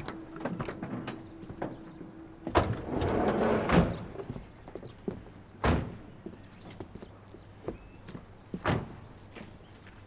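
A series of door thunks, about four sharp knocks a few seconds apart, with a stretch of rustling and handling noise between the first two.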